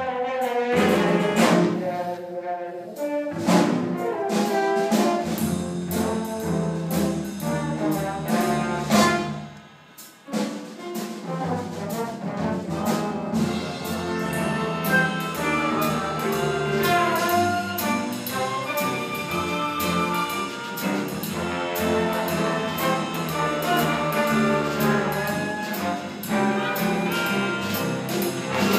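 A jazz big band playing live: trumpets, trombones and saxophones over piano, upright bass and drums. The band drops out briefly about ten seconds in, then comes back in.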